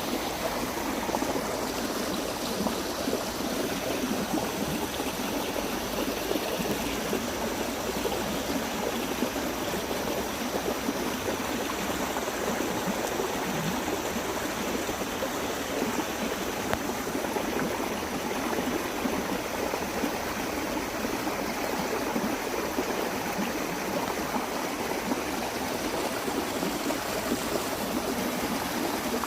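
Steady monsoon rain falling, a continuous even wash of water with many small drops and no break.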